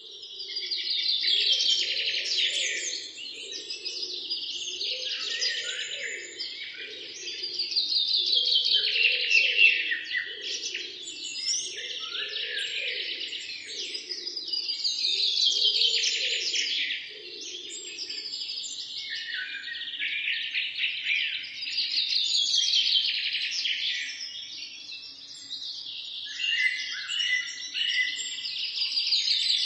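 Birds chirping in dense overlapping swells that rise and fall about every six or seven seconds, with a lower pulsing sound beneath them for the first half or so.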